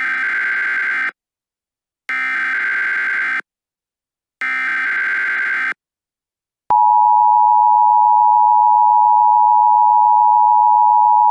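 Emergency Alert System header: three short bursts of screeching digital data, each about a second long with about a second between them. About seven seconds in, the steady two-tone EAS attention signal starts and holds, louder than the bursts.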